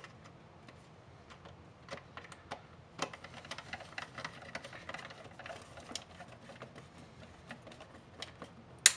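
Hand screwdriver driving long screws into an old flashlight's plastic housing: irregular small clicks and scrapes of the bit and screw turning in the plastic. One sharp, louder click near the end.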